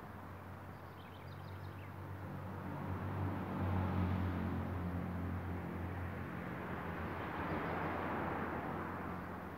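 Traffic crossing the bridge overhead: a low engine drone and tyre noise that swells to its loudest about four seconds in and eases off near the end.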